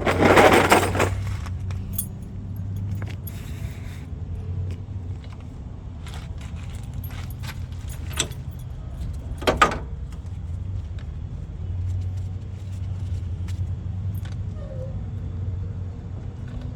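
A wrench clinking and scraping on a truck battery terminal bolt as the terminal is tightened back down, a loud scrape in the first second and a few sharp metal clicks after. A steady low engine hum runs underneath.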